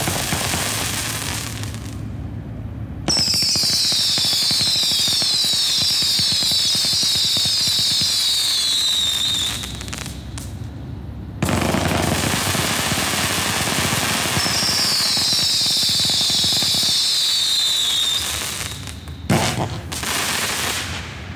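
Black Cat Fiesta Grande 216-shot firework cake firing in long rapid-fire barrages, a dense, unbroken crackle of launches with many overlapping high whistles falling in pitch. A first barrage fades out, two more start abruptly, each running about six seconds with a short lull between them, and a single sharp bang comes near the end.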